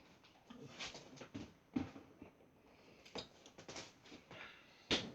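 Light, irregular clicks and knocks of kitchen handling, with one sharper click just before the end.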